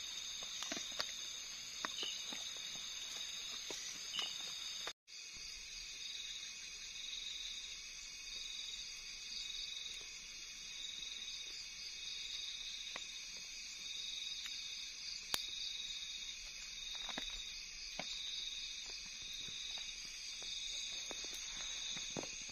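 Steady chorus of night insects: several high trills at once, one of them pulsing evenly about once a second. A few faint clicks are scattered through it, and the sound drops out briefly about five seconds in.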